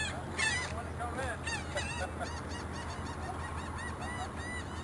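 Birds calling: a rapid run of short, arched calls from several birds overlapping, loudest in the first second and carrying on through.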